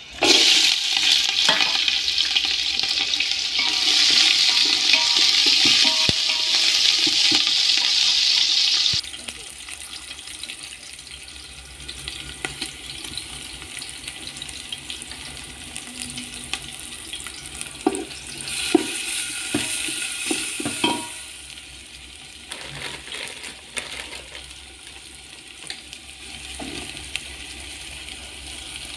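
Food frying in hot oil in a pan: a loud sizzle for about the first nine seconds, then a quieter frying hiss. Scattered clicks of a utensil stirring run through it, with a second louder spell of sizzling about two-thirds of the way through.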